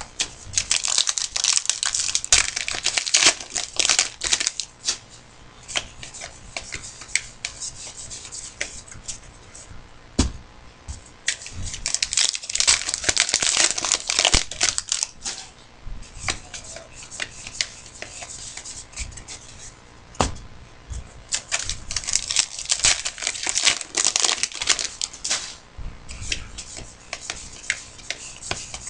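Trading card pack wrappers being torn open and crumpled by hand, crinkling in three long stretches with scattered small clicks and rustles between them.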